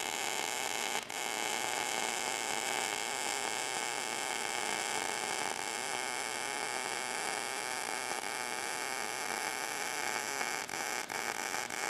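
MIG welding arc from an Everlast PowerMTS 221 STi laying a bead on 14-gauge steel with .023 wire, set at 17.5 volts, 220 inches a minute wire speed and 20% inductance. It runs as a steady buzzing hiss, with a few brief breaks near the end.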